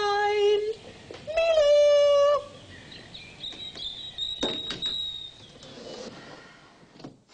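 A woman calling out in long, held sing-song notes, twice, as when calling birds to be fed; after that come fainter high chirps and a few light clicks.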